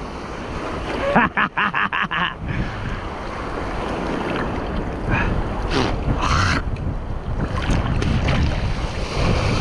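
Gulf surf washing and breaking around a wader, with wind buffeting the microphone. About a second in comes a quick run of six or so sharp clicks.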